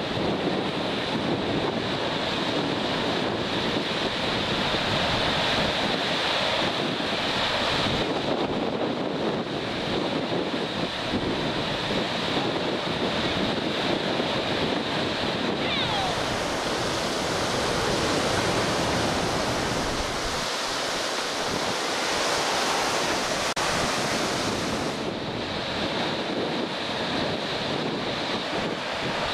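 Storm wind gusting across the microphone over choppy, wind-driven harbour water, a steady rushing noise.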